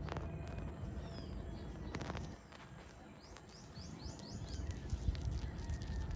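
Birds chirping, with a quick run of short rising chirps in the middle, over a steady low rumble of outdoor background noise. Two sharp clicks, one at the start and one about two seconds in.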